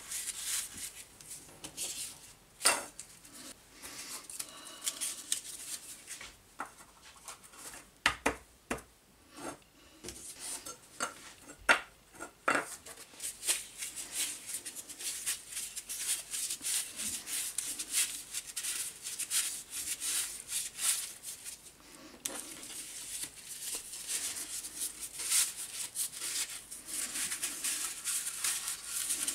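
Strips of thin corrugated cardboard being coiled and pressed into empty tuna tins: cardboard rustling and scraping against the thin metal, with sharp clicks and knocks of the tins. The knocks come thickest about eight to twelve seconds in, and steadier rustling runs through the last several seconds.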